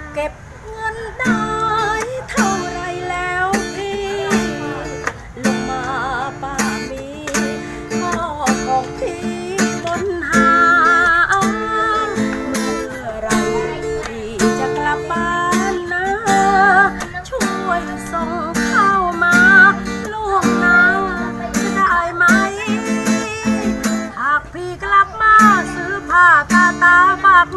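Acoustic guitar strummed in a steady rhythm, accompanying a man and a woman singing a Thai song.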